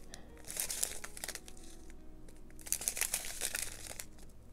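Small clear plastic packets of diamond-painting drills crinkling as they are handled and shuffled one after another, in irregular bursts of rustling with light clicks.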